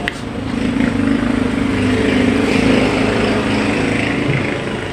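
A steady engine drone with a low hum, swelling a little through the middle, with a short click at the start.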